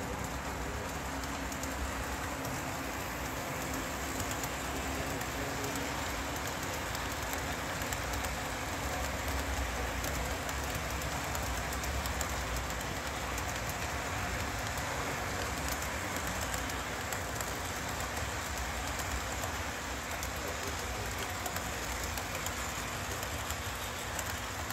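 Model freight train rolling past on the layout's track: a steady rushing rattle of wheels on rail.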